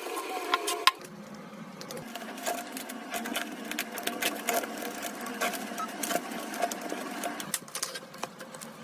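A small electric motor whirring steadily, with many sharp clicks over it.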